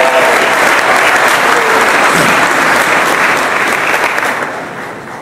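Audience applauding, a steady clapping that dies away about four and a half seconds in.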